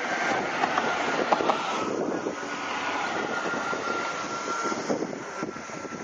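Steady road traffic noise: a continuous rushing hum with a faint steady whine running through it.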